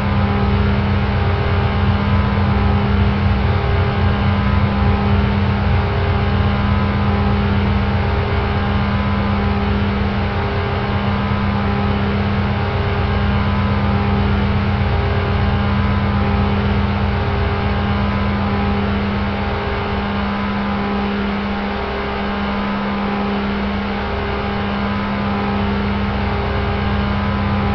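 Car engine sound effect running steadily at one pitch, a humming drone that swells and fades slightly every couple of seconds, like a short loop repeating.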